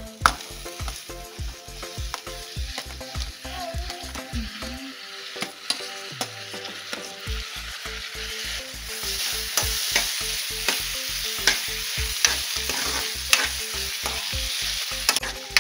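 Chopped tomatoes and green chillies being tipped into onions frying in oil in a metal pan, then stirred in with a metal ladle that scrapes and taps the pan. The sizzling gets louder about halfway through.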